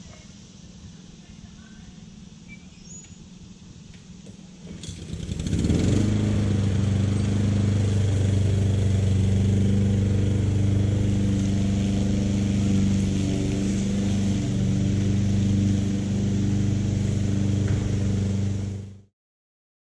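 Gas-powered string trimmer engine starting about five seconds in, then running at a steady high speed. It cuts off suddenly near the end.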